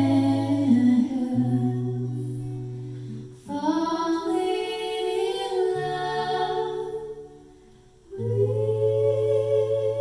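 Two women's voices singing slow, long-held phrases in harmony, with acoustic guitar chords ringing underneath. Three drawn-out phrases: the second begins about three and a half seconds in, and the third follows a short lull about eight seconds in.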